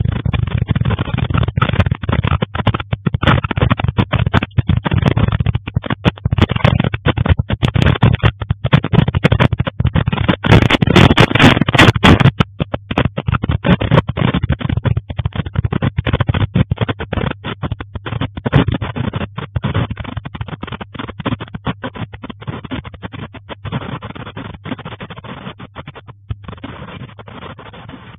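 Dense, irregular rattling and clattering as a building and camera mount shake in an earthquake. It is loudest about ten to twelve seconds in, then fades as the shaking eases.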